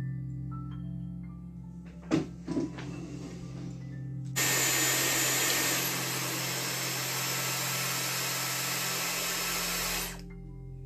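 Dyson Airwrap with a curling barrel blowing air in a loud, even rush, switching on about four seconds in and cutting off suddenly near the end. Two sharp knocks come about two seconds in, and soft background music with sustained notes plays throughout.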